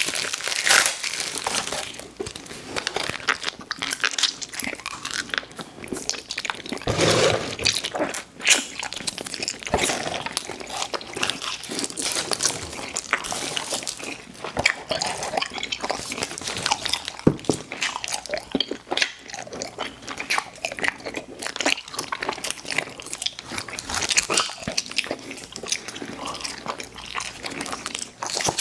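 Close-miked biting and chewing of sweets, a dense, irregular run of crunches and wet mouth clicks.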